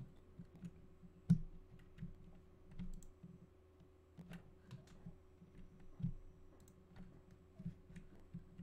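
Computer mouse clicks and keyboard key presses at irregular intervals, the sharpest just over a second in and about six seconds in, over a faint steady hum.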